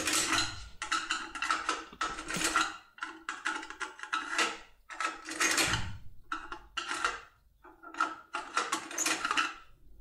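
Steel impression tools clicking and scraping against the levers inside a 6+6 lever lock as it is worked back, a quick run of metallic clicks with a few short pauses.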